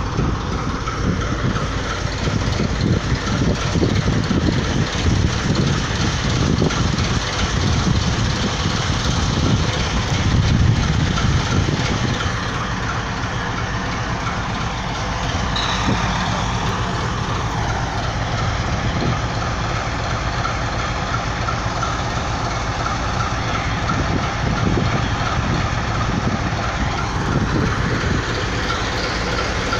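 Diesel shunting locomotive's engine running steadily as the locomotive moves slowly along the station tracks.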